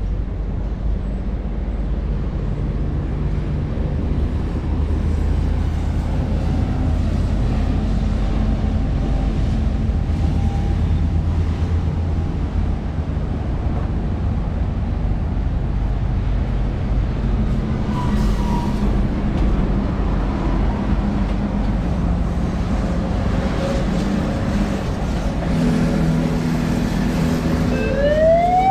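Road traffic passing, a steady rumble of vehicle engines and tyres. Near the end a siren starts up with a rising wail.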